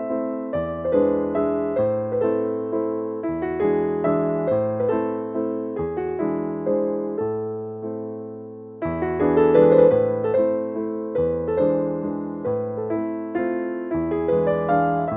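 Background piano music: a gentle melody of decaying notes over a slowly changing bass line. A phrase dies away about eight seconds in and a new one begins.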